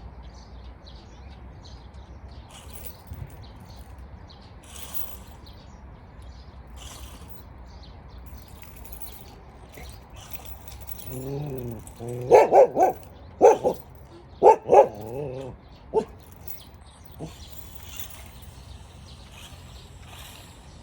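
A dog gives a drawn-out, sliding whine about halfway through, then a quick run of about half a dozen loud barks over the next few seconds, with a steady low hum underneath.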